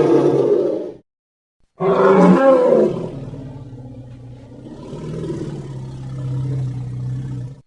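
Dinosaur roar sound effect. One roar cuts off about a second in. After a short silence a loud roar starts, then trails into a lower, long growl that swells again and stops abruptly near the end.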